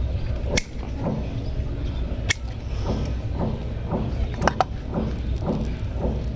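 Hands working through the dry, bare root mass of an air-layered kimeng bonsai, making short scratchy rustles about every half second and a few sharp clicks, two close together just past the middle.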